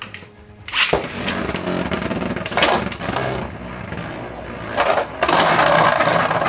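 Plastic Beyblade spinning tops whirring and grinding against each other in a stadium, with sharp clicking knocks as they collide. It gets louder about five seconds in.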